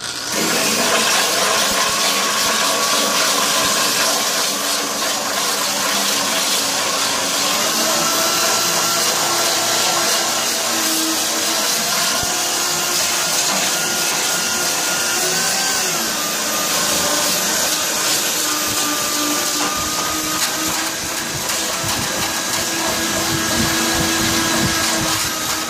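Corded electric drill running steadily with an abrasive sanding drum, grinding the surface of a fiberglass cowl. The motor's whine wavers a little in pitch a few times as the drum's load changes.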